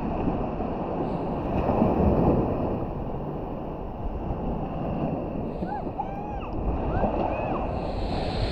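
Wind buffeting the microphone over the wash of small waves on the beach. A few short high chirps come about six to seven seconds in.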